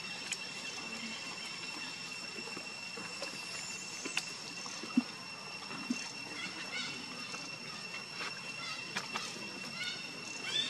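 Forest ambience with a steady high-pitched insect drone, a few soft taps, and short chirping calls near the end.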